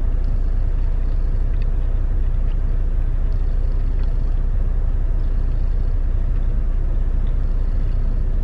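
Semi-truck engine idling, a steady low rumble heard from inside the cab, with a few faint small clicks over it.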